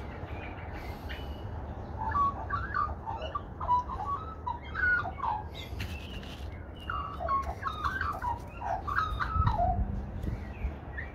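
Australian magpies warbling: two runs of quick, jumping notes, about two seconds in and again about seven seconds in, over a low steady rumble.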